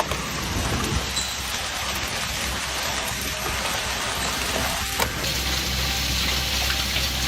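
A heavy downpour falling, a steady hiss of rain and hail on surfaces.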